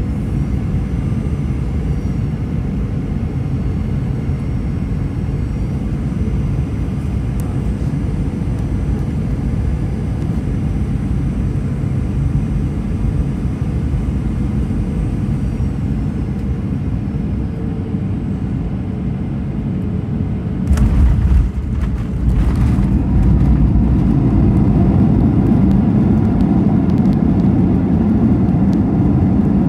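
Cabin noise of a Boeing 737-900ER on final approach: the steady roar of its CFM56 turbofan engines and airflow, with a faint high whine. About two-thirds of the way in the main wheels touch down with a thump and a rattle, and a louder, deeper roar then builds as reverse thrust is applied on the rollout.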